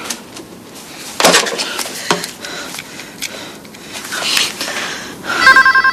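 A few soft clicks and rustles as a mobile phone is handled and dialed, then a telephone's electronic ringer starts trilling near the end, a rapid pulsing two-tone ring that is the loudest sound.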